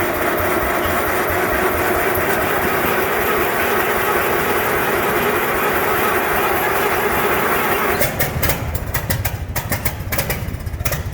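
Cold start of an Oliver 99 tractor: the starter cranks the engine for about eight seconds, then the engine catches and runs with an uneven, pulsing beat.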